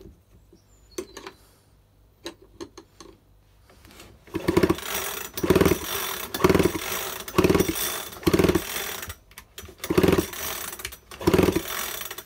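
A few light clicks of handling, then a Makita top-handle chainsaw's recoil starter pulled about eight times, roughly once a second, each pull a loud whirring rasp as the two-stroke engine spins over with its spark plug out for a spark check. The engine never fires: there is no spark at all, an ignition fault even after a new ignition coil.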